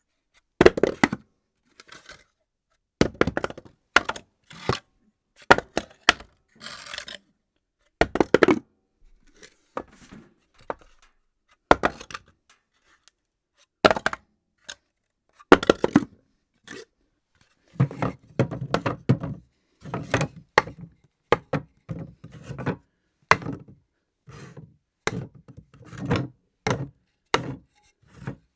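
Objects dropped one after another onto a hard floor, each a sharp clatter or knock, often with a few quick bounces. The drops come every second or two, and those in the second half land with heavier thuds.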